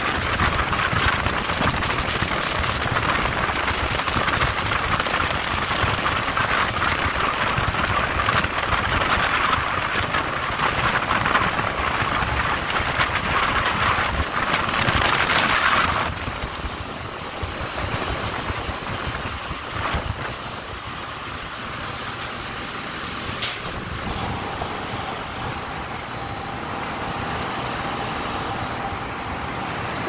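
Water falling through a Marley cooling tower's fill, a loud steady hiss, which drops away sharply about halfway through to a quieter steady background hum with a faint whine. A single sharp click comes about three-quarters of the way through.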